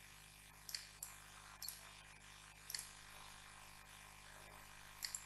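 Faint computer mouse clicks, about five scattered across a few seconds, over a low steady hum.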